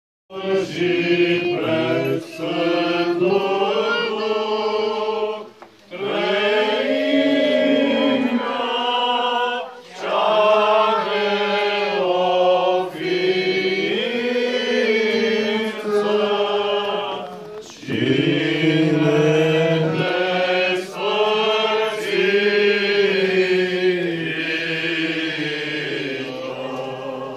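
Orthodox liturgical chant sung by male voices in long, held phrases with brief pauses between them.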